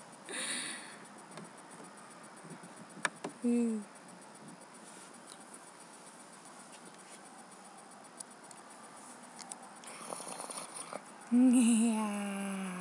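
A girl's voice making wordless sounds over low background hiss: a breathy burst at the start, a short hum about three and a half seconds in, and near the end a long wavering vocal note that slides down.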